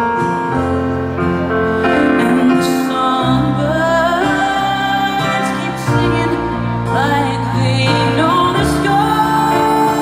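A woman singing live into a microphone, holding long notes with vibrato, over steady instrumental accompaniment.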